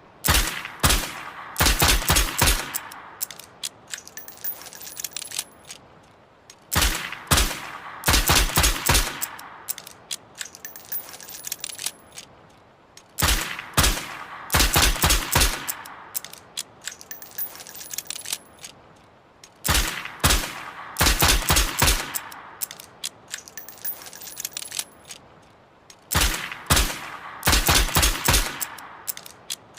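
Revolver sound effect on a loop: a rapid string of about six sharp shots, then lighter metallic clicks and a faint ringing tinkle. The same sequence repeats about every six and a half seconds, roughly five times.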